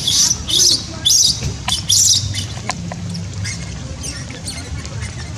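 Baby macaque squealing: short, high-pitched cries over and over, about two a second, loud at first and fainter after about two seconds.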